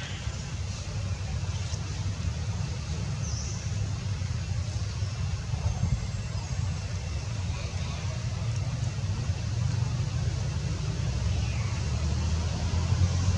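Steady low rumble of outdoor background noise, growing a little louder near the end, with a couple of faint high chirps.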